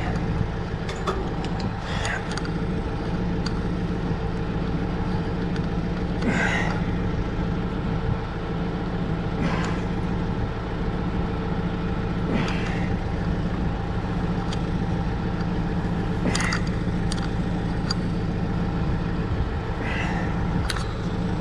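Steady mechanical hum throughout, with a short rasping swish about every three to four seconds as belt lacing is pulled through the belt's holes by hand.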